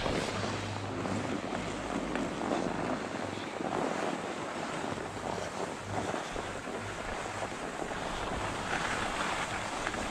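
Wind buffeting the microphone and skis sliding over packed snow while skiing downhill: a steady rushing hiss.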